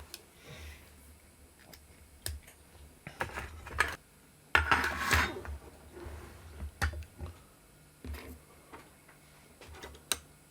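Light clicks, taps and clatters of small tools and parts being handled and set down, with a louder, longer rattling clatter about four and a half seconds in.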